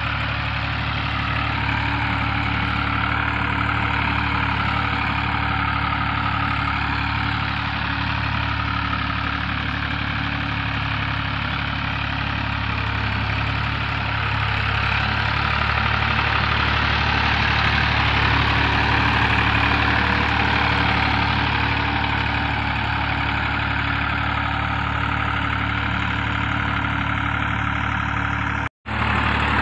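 Massey Ferguson 260 tractor's three-cylinder diesel engine running steadily under load while it pulls an 11-tine cultivator through worked soil. The sound cuts out for an instant near the end.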